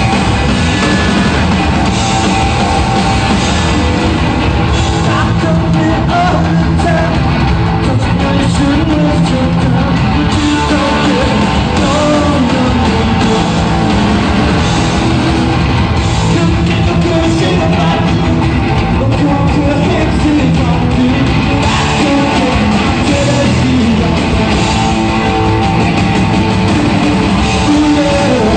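Live punk rock band playing loud and without a break: electric guitar, bass and drums, with sung vocals.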